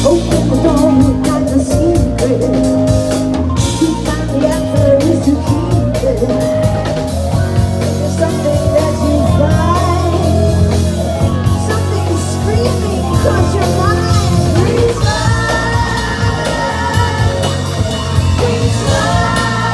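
Live rock band playing at full volume: drum kit, electric guitar, bass guitar and keyboards, with a woman singing.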